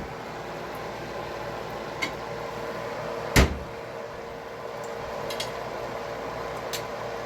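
Steady kitchen background hum and hiss, with a small click about two seconds in and a single loud, sharp knock about three and a half seconds in.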